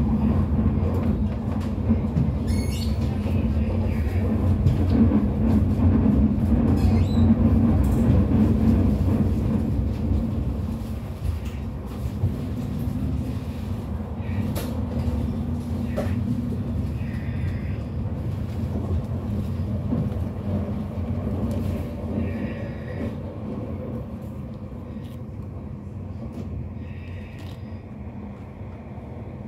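Electric commuter train heard from inside the carriage: a steady low rumble and rolling noise of wheels on track. It grows quieter through the second half as the train nears a station platform.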